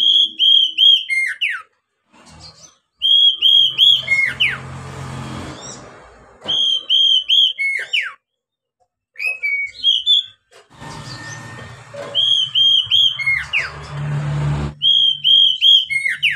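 Oriental magpie-robin singing: about six short phrases of repeated clear whistled notes, each ending in quick falling sweeps, with short pauses between them. A low hum and rushing noise rises under the song twice.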